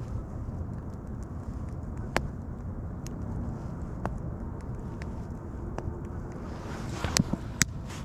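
Wood bonfire burning, with sharp crackling pops about once a second and two louder pops near the end, over a steady low rumble.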